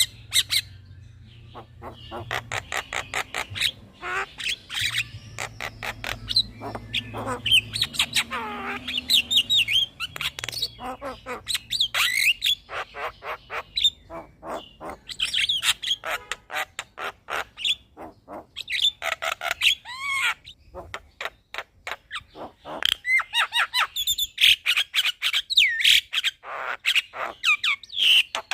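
Javan myna (jalak kebo) singing a long, continuous, varied song: fast runs of dry clicks and rattles mixed with warbled whistles and harsh squawks.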